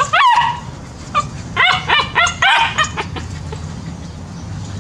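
Several young puppies yapping and yelping in high voices, excited to be let out of their pen. There is a yelp that falls in pitch at the start, then a quick run of five or so short barks about a second and a half in.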